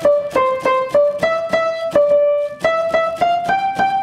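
Piano played one note at a time through bubble wrap laid over the keys: a simple single-line melody at about three notes a second, with a sharp click at the start of each note and one longer note held about halfway through.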